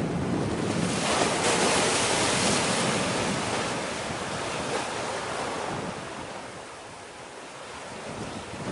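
Wind buffeting the microphone over the wash of the sea, a steady rushing noise with gusty low rumble. It swells about a second in and slowly eases off toward the end.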